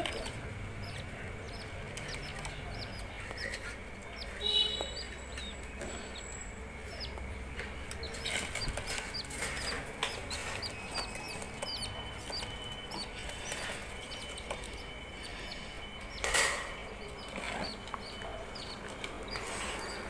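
Budgerigars chirping and chattering in many short calls, with a harsher squawk about four and a half seconds in and a short, louder scuffle about sixteen seconds in.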